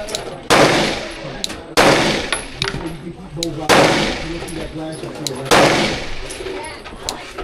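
Four gunshots fired one at a time at an uneven, unhurried pace, each a sharp crack trailing off over about a second.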